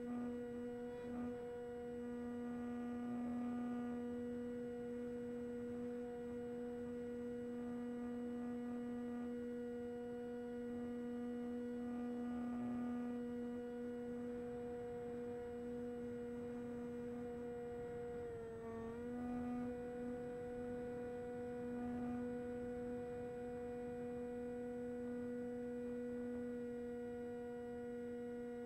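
Electric motor and propeller of a 1400 mm Skysurfer RC plane in flight, picked up by the onboard Caddx Air unit: a steady humming tone with overtones. About two-thirds of the way through, the pitch dips for a moment and comes back.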